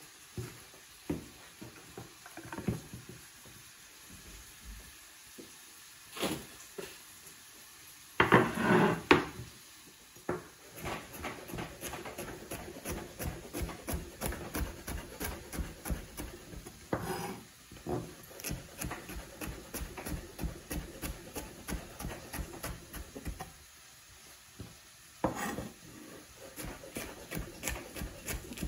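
Chef's knife slicing trimmed artichokes into thin strips on a wooden cutting board: quick, even taps of the blade on the board, about four a second, starting about ten seconds in and pausing briefly near the end. Before the slicing there are a few scattered knocks and rustles as the artichoke pieces and the board are handled.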